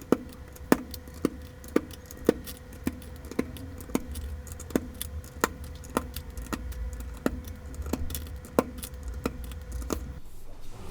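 Sharp plastic clicks about twice a second as parts are pressed into a mechanical keyboard during assembly, over a steady low hum that stops near the end.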